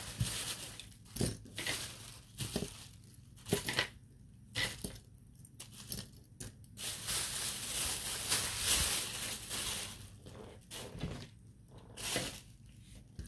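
Hands rustling and crinkling through packaging while sorting a pile of costume earrings, with scattered small clicks of pieces knocking together. The rustling is busiest in the middle of the stretch.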